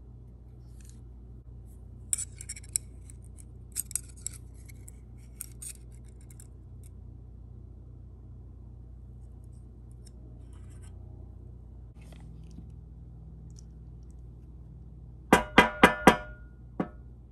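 Small steel parts of a hydraulic roller lifter clicking lightly as they are handled. Near the end come four quick, loud metallic taps with a ringing tone, then one fainter tap.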